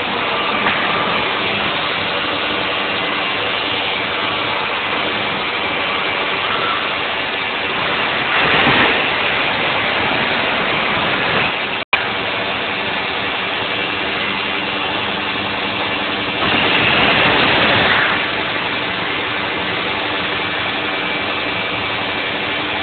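CNC router spindle and cutter milling pockets into a Stratocaster guitar body: a steady, loud machining whine over a rush of cutting noise, swelling louder twice as the cutter bites harder.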